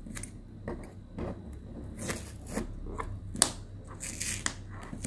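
Hands handling a wool-thread rakhi strung with plastic pearl beads, making scattered short rustles and scrapes of yarn and fingers against the surface, the loudest about three and a half seconds in, over a low steady hum.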